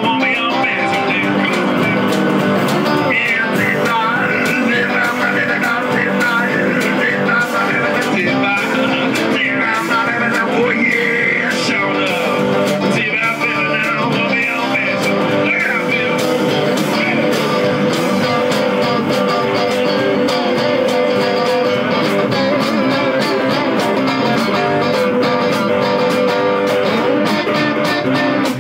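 Two electric guitars, one a red semi-hollow body, playing an instrumental blues number, with lead lines of bent notes in the first half and longer held notes later.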